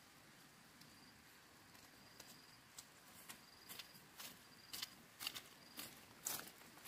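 Faint insect chirping, short high chirps repeating, with a run of short scrapes about twice a second that grow louder through the second half.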